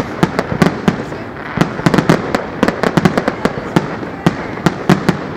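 Aerial fireworks going off in a rapid, irregular barrage of sharp bangs, several a second, over a continuous rumble and crackle.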